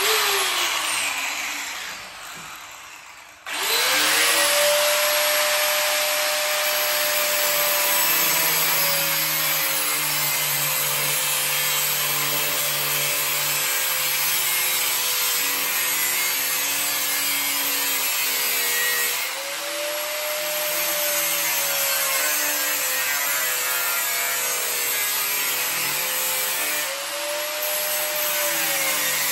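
Angle grinder working metal. A first short run winds down with falling pitch. The grinder starts again about three and a half seconds in, and its note sags and recovers as it is pressed into the work, with two brief easings of pressure later on.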